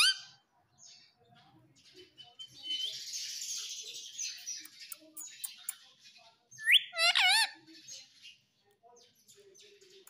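Indian ringneck parakeet making high, warbling calls: one cut short right at the start and a louder burst about seven seconds in. A raspy, hiss-like noise fills the middle few seconds.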